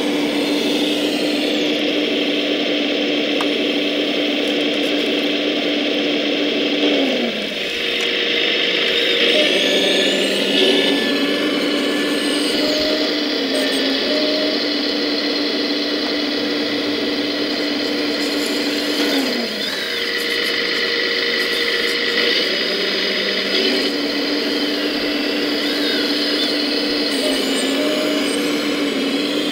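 Electric hydraulic pump of a 1:14 scale RC Volvo EC160E excavator whining steadily under load. About 7 seconds in, and again about 19 seconds in, the tone drops and changes to a different, higher set of tones for several seconds before it settles back to the first tone.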